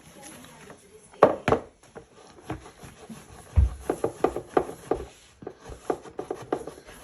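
Irregular knocks and clicks of hard objects being handled: two loud knocks a little over a second in, a low thump midway, then a quick run of lighter clicks.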